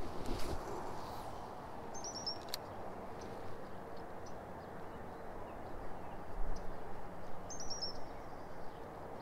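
A bird calling twice, about five seconds apart, each time a quick run of four or five high chirps, over a steady outdoor hiss.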